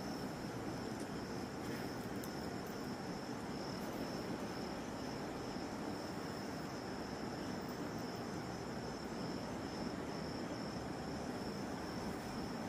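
Crickets chirring steadily in a continuous high trill, over a constant background hiss.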